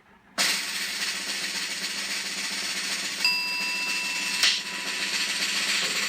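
Sound effect played from a sound-effects app: a snare drum roll that starts suddenly about half a second in and runs on steadily. A steady beep-like tone sounds over it for about a second in the middle and ends in a short sharp hit.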